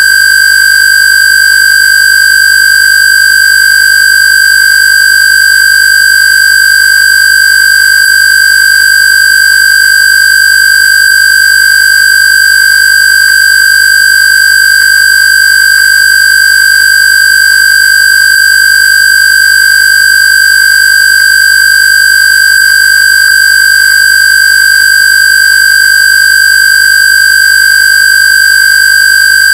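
Loud electronically generated square-wave tone from a Rife/AWG frequency list, held at one steady high pitch with no change.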